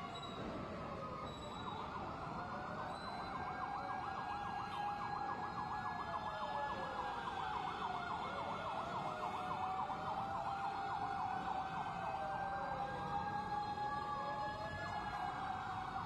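Emergency vehicle sirens, more than one at once: a slow wail rising and falling every few seconds, overlaid by a rapid yelp. They grow slightly louder.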